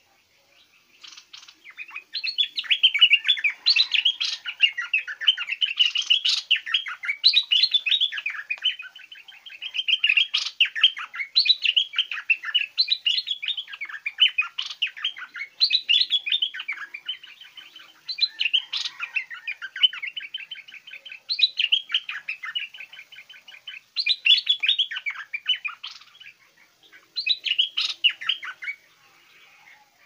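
Stripe-throated bulbul singing: a long run of short, fast chattering phrases, one after another every second or two, with brief pauses between runs.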